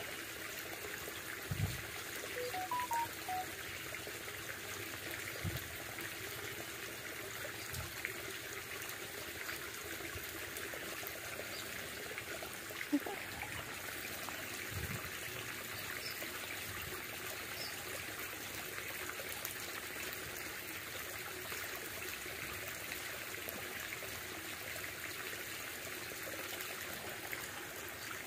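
Small stream trickling steadily, with a few soft low thumps now and then.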